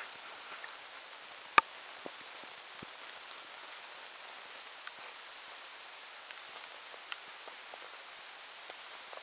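Water dripping onto snow: a steady hiss with scattered small drip ticks and one louder sharp click about a second and a half in.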